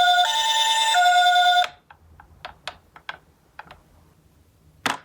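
Toy ambulance's electronic hi-lo siren, the Japanese "pee-po" two-tone, alternating about every two-thirds of a second, then cutting off suddenly. A scatter of light clicks and taps follows, with a sharper knock near the end.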